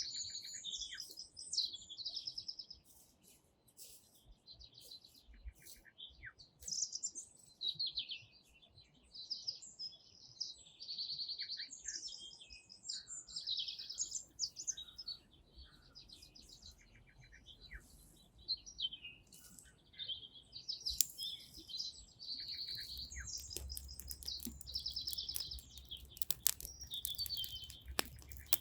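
Small songbirds singing in quick, repeated high chirping phrases, one after another. In the last third a few sharp clicks and a low rumble come in under the song.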